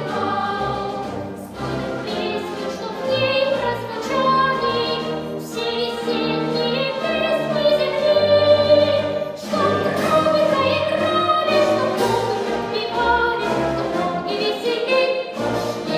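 Children's choir singing with orchestral accompaniment, the voices moving through a melody over a steady bass line.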